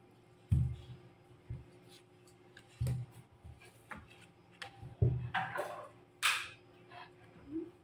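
Tarot cards being handled and laid down on a wooden table: a string of soft, separate taps and thuds, with a short papery swish of a card near the end.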